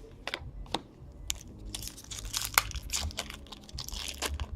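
A 2016-17 Upper Deck Series 1 hockey card pack's wrapper being torn open and crumpled by hand. A few sharp snaps come first, then a couple of seconds of dense crinkling.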